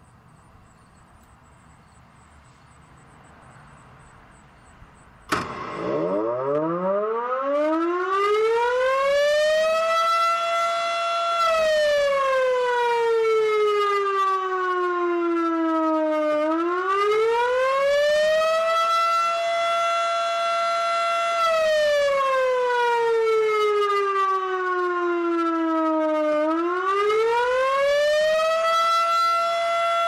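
Federal Signal Model 5A fire siren sounding the attack signal. About five seconds in, a click as it switches on, then it winds up, rising steeply in pitch to a loud steady tone, holds briefly, slides down, and climbs again, rising and falling about every ten seconds. Recorded almost directly under the siren, so the loudest parts clip.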